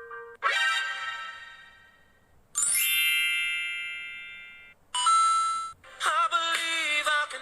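A string of short comedy sound effects, one after another: a bell-like ding that rings and fades, then a second shimmering chime that starts with a quick upward sweep and cuts off, a brief tone, and near the end a wobbly, warbling tone.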